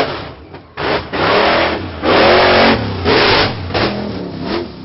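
Monster-truck engine sound effect revving hard in a series of loud bursts, its pitch rising and falling with each rev, fading out near the end as the truck drives away.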